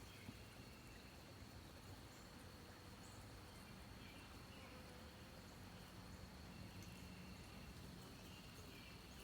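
Near silence: faint outdoor ambience with a thin, steady high-pitched tone and a few faint short chirps.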